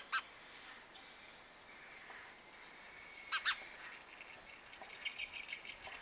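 A sparrow chirping: a short double chirp at the start and another about three seconds in, then faint rapid twittering over the last second or so.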